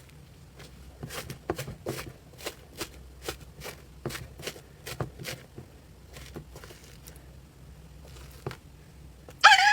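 Slime being squeezed and poked, giving irregular crisp clicks and pops that are busiest in the first half and thin out later. Near the end comes a short, loud, high squeak.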